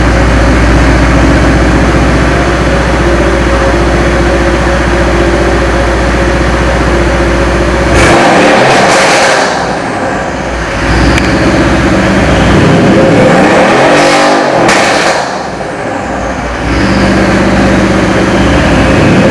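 Mercedes-Benz car engine running steadily, then revved several times from about eight seconds in, its pitch rising and falling.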